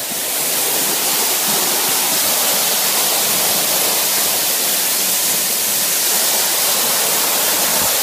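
Waterfall close up, heard from about two metres away in its spray: a loud, steady rush of falling water, growing a little louder about half a second in.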